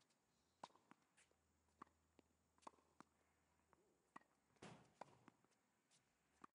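Faint, sharp pops of a tennis ball being struck by rackets and bouncing on a hard court, coming irregularly about one to two a second, with a brief scuffing noise about two-thirds of the way through.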